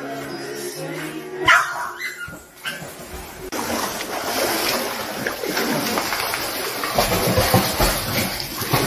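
A Boston terrier gives a brief vocalization about two seconds in. Then water splashes and churns steadily as a person wades through the pool and the dog swims.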